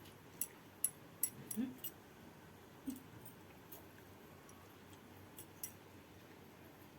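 Eating noises: a scattered run of short, sharp clicks and smacks, most of them in the first two seconds, then a few more spaced out.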